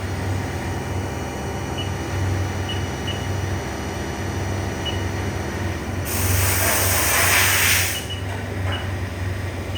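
Haas VF-6SS vertical machining center running with a steady, slightly pulsing hum and a few faint short high beeps. About six seconds in comes a loud hiss lasting about two seconds.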